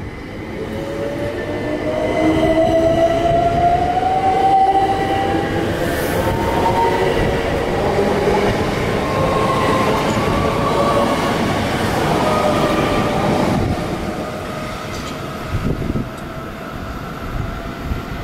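Electrostar electric multiple unit accelerating, its traction motors giving a whine that rises in pitch over the first few seconds, over the rumble of the train.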